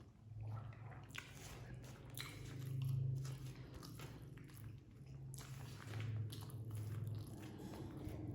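Close-up chewing and biting of a mouthful of nasi padang: irregular wet, squishy mouth sounds with occasional crunches, over a low hum.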